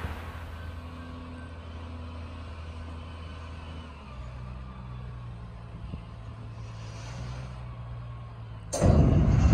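Heavy diesel engine of a container reach stacker running with a steady low note that shifts slightly about four seconds in. Near the end a sudden loud rush of noise comes in over it.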